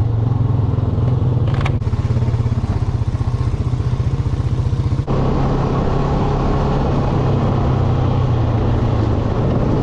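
Honda Rancher 420 ATV's single-cylinder engine running as the quad rides along a rough dirt trail, heard from the rider's seat. The sound changes abruptly about five seconds in.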